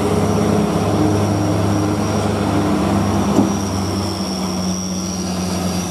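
Heavy diesel truck engine running steadily at low revs, a deep even hum, with one short knock about three and a half seconds in.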